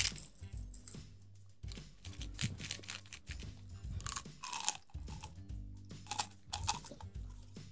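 Plastic candy tube opened by pulling off its snap-on plastic cap, then sugar-coated chocolate buttons rattling and clicking as they are tipped out into a palm, in several short bursts, the clearest about four and six seconds in. Background music with steady low notes plays underneath.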